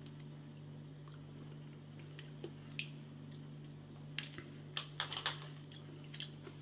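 Faint scattered crinkles and clicks of a small seasoning sachet being opened and emptied into an instant noodle cup, busiest around four to five and a half seconds in, over a steady low hum.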